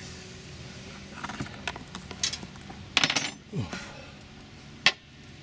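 Metal hand tools clinking and knocking. There is a loud cluster of clinks about three seconds in and a single sharp clink near the end.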